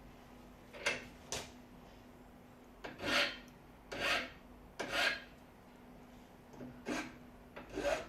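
Hand file rasping on a metal part: about eight separate short strokes, roughly one a second with uneven pauses between them.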